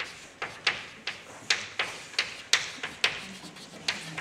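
Chalk writing on a blackboard: an irregular run of sharp taps and short scratches, about three a second, as letters are written.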